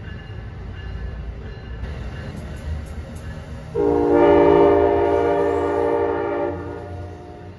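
Passenger train cars rumbling along the rails; about four seconds in, a train horn sounds one long blast of about two and a half seconds, a chord of several tones.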